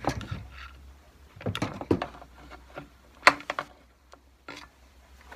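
Scattered clicks and knocks of a Stihl MS390 chainsaw's plastic housing being handled and shifted on a wooden workbench, with one sharper knock about three seconds in and a low hum underneath.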